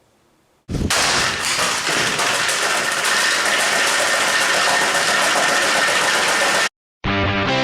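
Electric fan running loudly and steadily, with a faint whine, switching on abruptly about a second in and cutting off abruptly near the end. Right after, a burst of guitar music begins.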